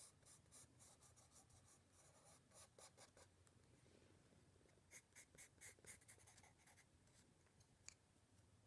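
Faint scratching of a soft charcoal pencil on sketch paper, in quick runs of short strokes with a pause near the middle.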